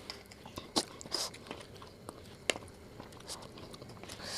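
A person chewing and crunching a mouthful of spicy food, with scattered sharp clicks, the two loudest about a second in and halfway through.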